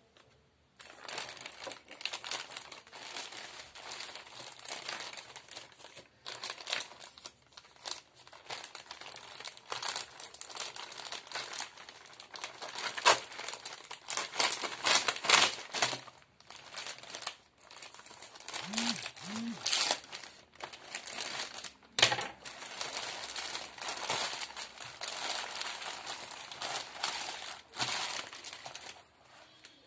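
Clear plastic bag wrapping a cardboard box crinkling and rustling as hands handle it and pull it off, with a few sharper crackles of the plastic along the way.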